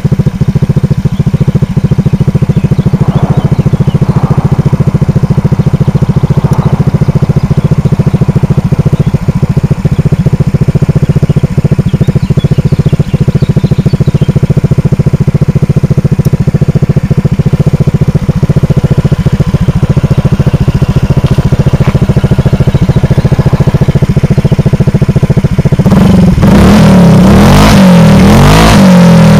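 Honda PCX 125 scooter's single-cylinder engine idling through a homemade exhaust with a loud, steady low putter, then revved up and down repeatedly near the end.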